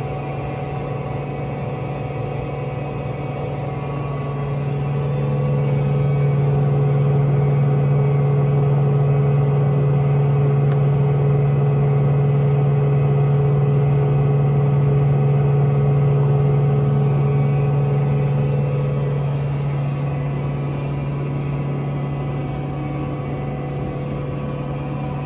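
LeBlond Regal Servo Shift 26" x 144" engine lathe running under power: a steady mechanical hum with a strong low drone and several constant tones above it, growing louder a few seconds in and easing back some seconds before the end.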